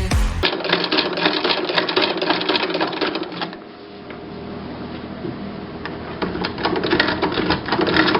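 A fast, even mechanical clatter of rapid ticks that gets quieter a few seconds in and then builds back up.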